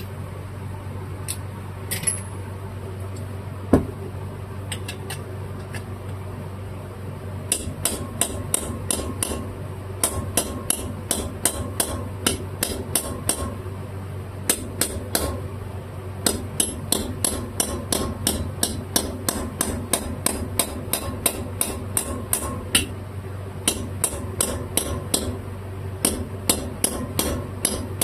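Light hammer taps on a small press-fit part in a carburetor body, a few scattered taps at first, then a quick run of about three to four taps a second from about a quarter of the way in. They are driving the part fully home so it is seated and sealed all the way around.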